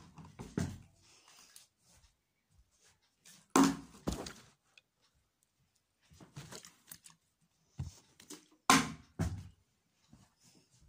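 A plastic water bottle thudding down onto a wooden tabletop during bottle-flip attempts. There are several thuds, the loudest about three and a half and nine seconds in, each followed by a second knock about half a second later as the bottle bounces or tips over.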